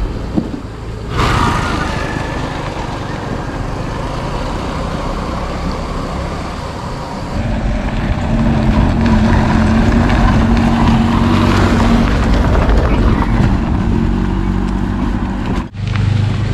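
A car driving past on a rough dirt road, its engine and tyres growing louder through the middle and then fading. The sound breaks off abruptly near the end.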